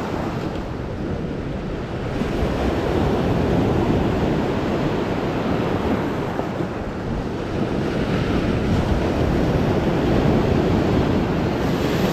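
Lake Superior waves breaking and washing over a rocky shore of broken stone, swelling and easing as each wave comes in, with wind rumbling on the microphone.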